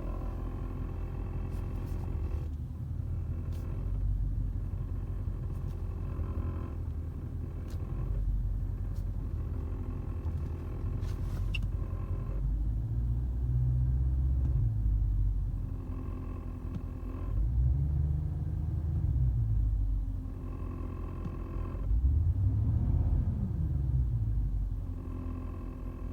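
Mercedes CL63's 6.2-litre V8 idling, heard from inside the cabin as a low rumble. A recurring knock comes and goes every couple of seconds and the rumble swells three times. The owner suspects a bad gearbox mount near the firewall.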